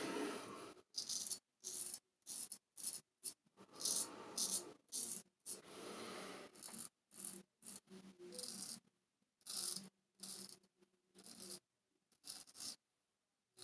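Person Special Solingen straight razor scraping through lathered stubble in a long run of short strokes, each a brief rasp with short gaps between.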